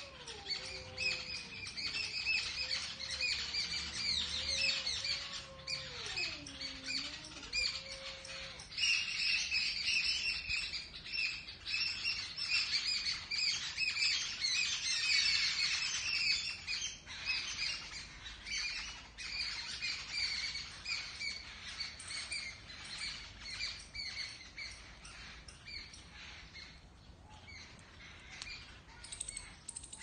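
Many small birds chirping and chattering without a break, the calls thick and overlapping, busiest around the middle and thinning out near the end. For the first eight seconds a faint wavering tone slides up and down underneath.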